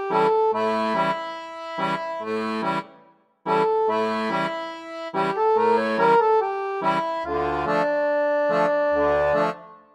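Background accordion music with a steady rhythm. It cuts out for a moment about three seconds in, then picks up again.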